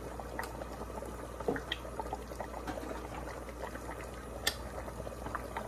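A pot of cabbage, cured pork and okra boiling uncovered on the stove: steady bubbling with small pops and ticks, and a sharper click about four and a half seconds in.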